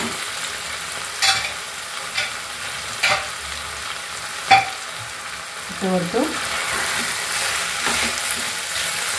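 Oil sizzling in a steel pan as steamed rice dumplings are stirred into an onion-tomato masala, with a few sharp clicks in the first half, the loudest about four and a half seconds in.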